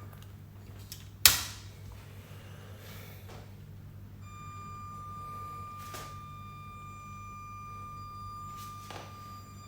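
Small electric motor of a LEGO train whining with a thin, steady high tone that drops out for a few seconds and comes back, over a low hum. A single sharp loud click comes about a second in, and fainter clicks follow later.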